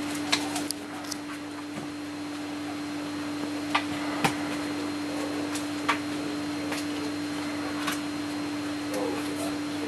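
A steady hum with about half a dozen short, sharp clicks scattered through it, two of them close together about four seconds in.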